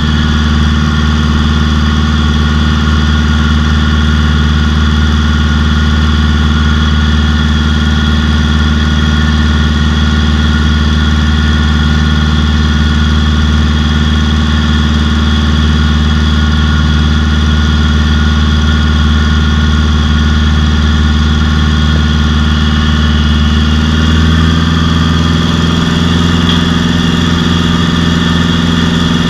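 Engine-driven water pump running steadily at close range, feeding a high-pressure jetting hose. Its note steps slightly higher about 24 seconds in.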